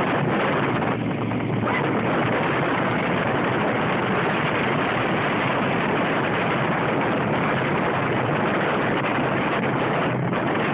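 Dune buggy driving over sand: its engine running steadily under a heavy wind rush on the microphone, an even, loud noise with no breaks.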